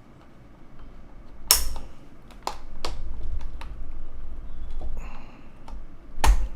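Corsair mechanical keyboard clattering under handling: a few separate sharp clicks of keys and keycaps, the loudest about a second and a half in and again near the end, over a low rumble of the keyboard being moved.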